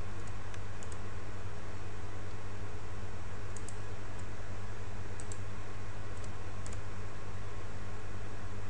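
A few sharp, separate clicks of a computer mouse and keyboard, spaced a second or more apart, over a steady low electrical hum.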